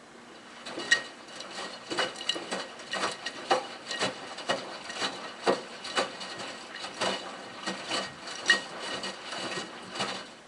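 Miele Touchtronic W3033 front-loading washing machine's drum turning in a wash tumble, with the wet cotton blanket lifting and dropping. It gives soft knocks and swishes about twice a second. The drum starts about half a second in and stops near the end.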